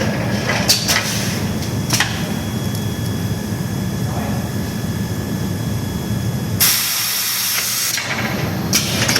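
Gang-saw blade socket welding machine running with a steady low hum and a few sharp clicks. About seven seconds in comes a loud hiss lasting roughly a second and a half.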